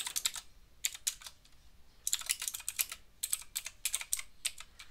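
Typing on a computer keyboard in quick bursts of key clicks, with short pauses between them and a dense run of keystrokes in the middle.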